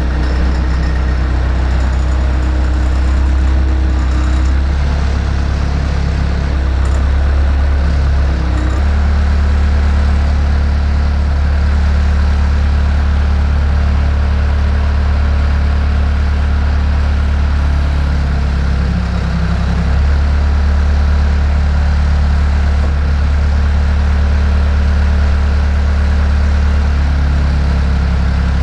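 Bobcat skid steer loader's engine running steadily, its note shifting a few times: about eight seconds in, again around nineteen to twenty seconds, and near the end.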